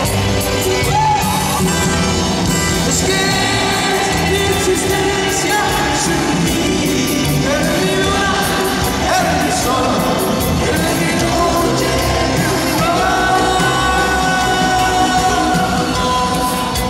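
Live band music with a lead vocal, loud and unbroken, recorded from within the concert crowd, with some audience yells and shouts over it.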